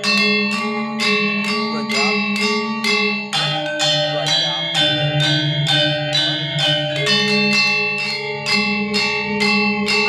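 Balinese gamelan ensemble rehearsing: bronze metallophones struck in a fast, even pulse of about four notes a second, each note ringing on, over sustained low bronze tones that shift every second or two.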